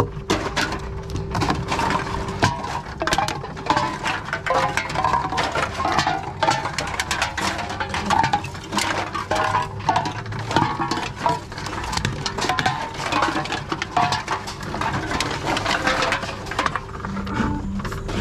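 Empty aluminium cans and plastic bottles clinking and clattering as they are handled in a plastic crate and fed one by one into a TOMRA reverse vending machine, with many quick knocks throughout over a steady low hum.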